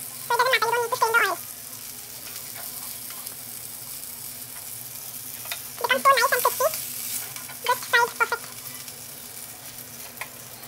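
Semolina-coated fish sizzling in a little coconut oil in a frying pan, with a metal spatula and spoon scraping the pan as the fried fish are lifted out. A high-pitched voice-like sound cuts in three times: near the start, about six seconds in and about eight seconds in.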